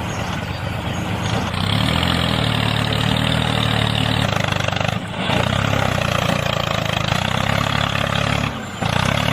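Tractor-type engine running steadily, with a low, even note, dropping out briefly about five seconds in and again near the end.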